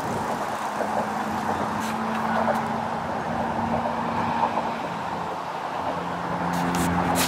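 Road traffic on a busy bridge: a steady wash of tyre and engine noise with a low hum running through it.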